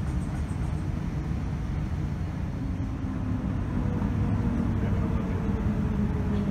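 Cabin noise of a Boeing 787-9 taxiing: a steady low rumble from its Rolls-Royce Trent 1000 engines at taxi power, with a faint hum joining about two seconds in.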